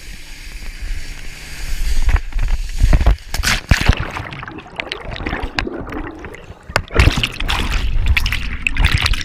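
Water rushing past and wind on a GoPro as a rider is towed behind a boat. About two seconds in, the rider falls: heavy splashing and water crashing over the camera with a few sharp slaps, then churning, bubbling water as the camera goes under.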